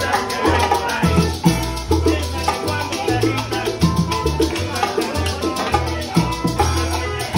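Live Cuban band playing an up-tempo Latin dance number: an upright bass walks a steady line under congas and bongos, a strummed guitar, and maracas shaken on every beat.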